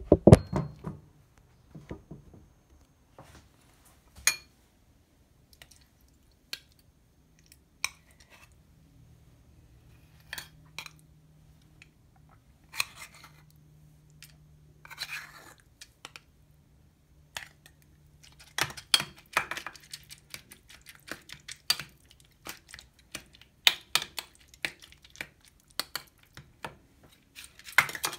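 A metal spoon scraping and clinking against stainless steel bowls and an opened can as wet food is scooped and stirred. The clicks and scrapes come irregularly with quiet gaps, busier in the second half.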